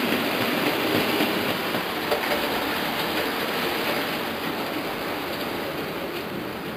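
OO scale model train running along the track, a steady running noise from its wheels and motor that fades gradually as it moves away.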